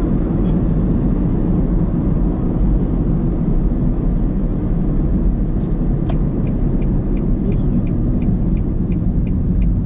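Steady road and engine noise inside a moving car's cabin. About six seconds in, a fast, regular ticking starts, about three ticks a second.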